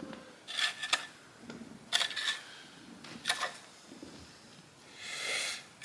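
Sandy soil being scooped and dropped back into a post hole: a few short rustles of sand, then a longer one near the end.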